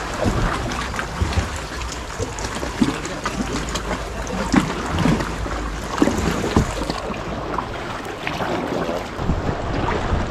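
Sea kayak under way: water splashing and dripping from the paddle strokes and lapping at the hull in many small irregular splashes, over a steady low rumble of wind on the action camera's microphone.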